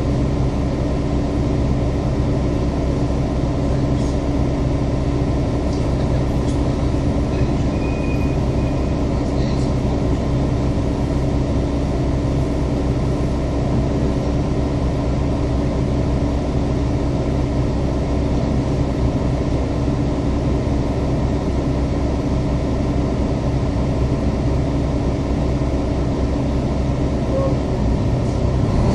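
City bus engine idling steadily while the bus stands still, heard from inside the bus. A few faint clicks and a short high tone come about eight seconds in.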